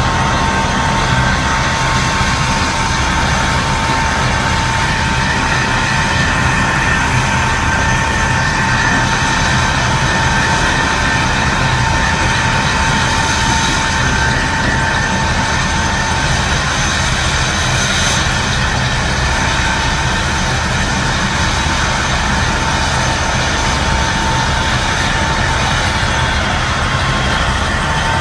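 Helicopter turbine engine running steadily on the ground: a continuous high whine over a dense rushing rumble.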